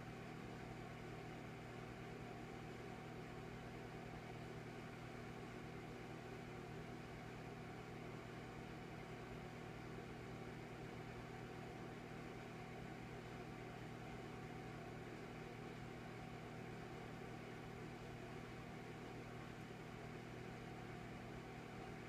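Electric fireplace running with a steady, faint hum: a few constant low tones over an even hiss, with no crackle.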